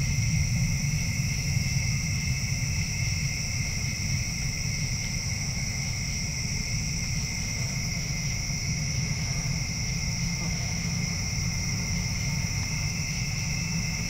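Night chorus of singing insects: a steady, unbroken trilling at two pitches, one high and one higher, over a steady low rumble.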